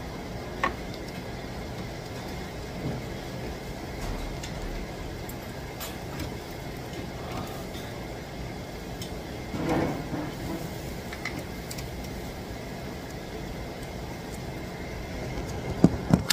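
Steady restaurant din with scattered light clicks of chopsticks and tableware while people eat, the sharpest clatter of utensils coming near the end.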